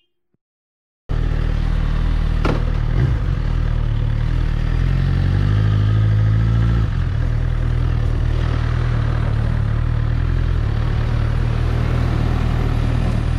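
After a second of silence, a Suzuki GSX-R1000 K7's inline-four engine runs with a steady low note; the note climbs a little and then drops about seven seconds in.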